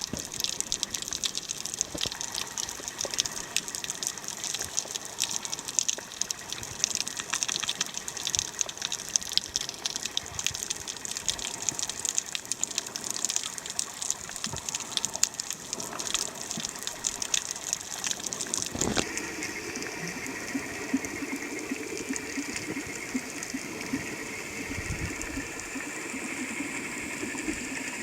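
Rushing, splashing water with a dense crackle of small splashes. About two-thirds of the way through it changes suddenly to a steadier, lower rush.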